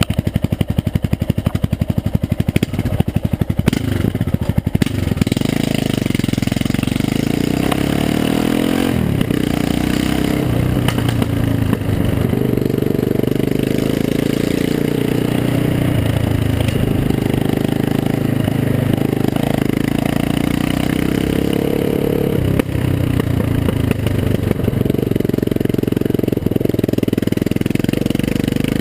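Yamaha XT660R's single-cylinder four-stroke engine running through an opened exhaust, a loud, open exhaust note. For the first few seconds it is at low revs with each firing pulse distinct, then it runs steadily under way, its pitch rising and falling as the speed changes, with a short drop in level about three quarters of the way through.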